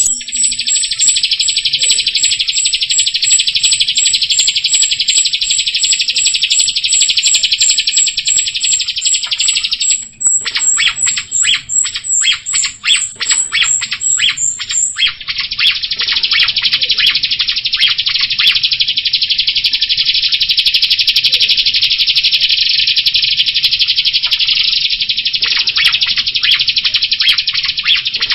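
A jalak rio (rio-rio starling) singing a fast, continuous, rattling trill with a rapid run of high chirps above it. About a third of the way in, the trill breaks into a quick series of separate notes, then runs on unbroken again.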